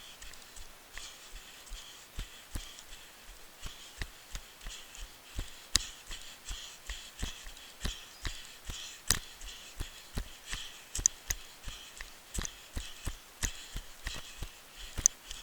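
A runner's footfalls on a dirt trail, a steady cadence of about three thumps a second that gets louder after the first few seconds, over a faint steady high hiss.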